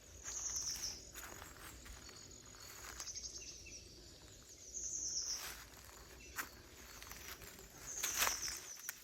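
A bird repeating a short, high, slightly falling call three times, about every four seconds. Between the calls come scattered crunches of dry autumn leaves underfoot.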